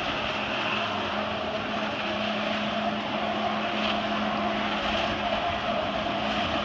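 Jet ski engine running steadily at high throttle, pumping water up the hose to a flyboard, with the hiss of the water jets spraying.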